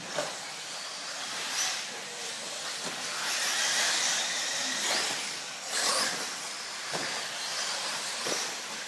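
1/8-scale electric RC off-road buggies racing on a dirt track: a high hissing whine of electric motors and tyres on loose dirt that swells as cars pass close, loudest around four and six seconds in.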